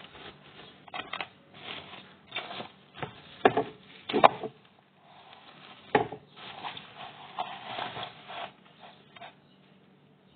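Cling film being pulled off its roll and stretched over a dish, crinkling and rustling in irregular bursts, loudest a few seconds in and again at about six seconds.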